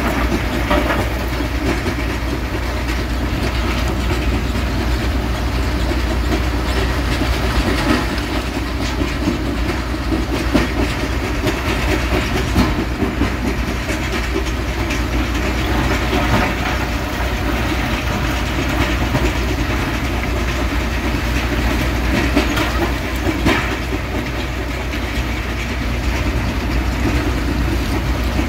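Heavy quarry machinery running together: a tracked mobile rock crusher and the diesel engine and hydraulics of a Volvo EC380DL excavator, a steady low rumble under continuous rattling, with irregular louder clatters of rock.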